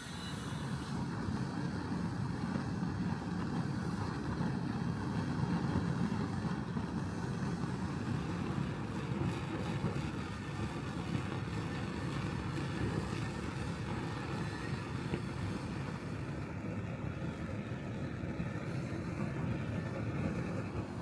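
A steady, low mechanical running noise that starts at once and holds without a break.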